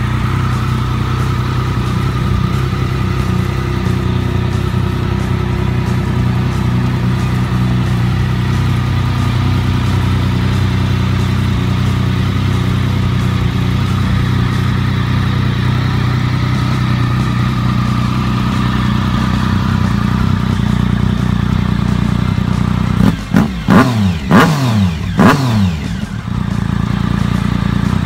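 Triumph Tiger three-cylinder motorcycle engine idling steadily through a Delkevic carbon-fibre slip-on silencer. Near the end it is given a few quick blips of the throttle, each rev rising and dropping back to idle.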